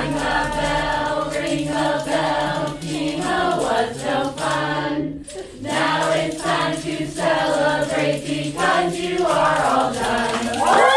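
Bells ringing a piece of music in sustained, overlapping chords, with a brief break about five seconds in.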